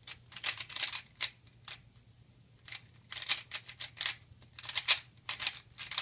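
A 3x3x3 Rubik's cube being turned quickly by hand: bursts of rapid plastic clacks as its layers are twisted, broken by short pauses.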